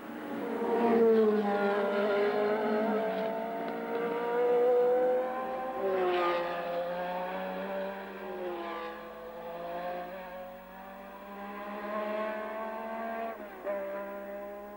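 Formula One racing cars' engines running at high revs as the cars pass by one after another, the pitch dropping as each goes past, several times.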